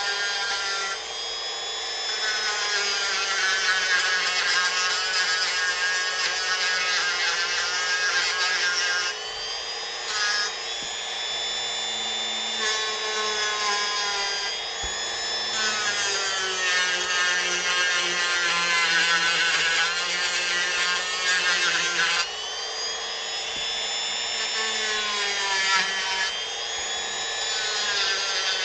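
Dremel rotary tool with a small sanding drum grinding into wood, its high motor whine dipping and recovering in pitch as it is pressed into the work and eased off, over several passes.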